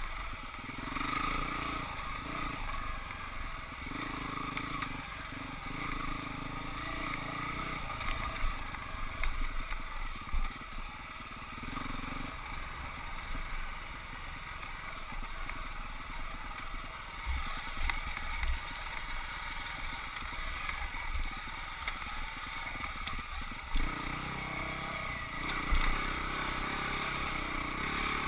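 Husqvarna 449 dirt bike's single-cylinder four-stroke engine running on a trail, its revs rising and falling, with steady wind rush and a few dull thumps from the bike going over rough ground.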